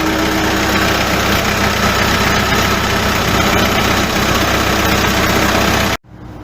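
New Holland LB115.B backhoe loader's diesel engine idling steadily and loudly after starting normally. It cuts off suddenly near the end.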